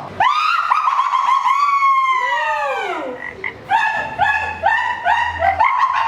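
High, squeaky pitched calls: a few long swooping notes that rise and fall, then a quick run of short chirping notes in the second half.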